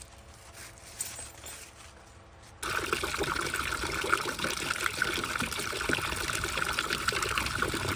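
Water running steadily, starting suddenly about two and a half seconds in after a quiet start.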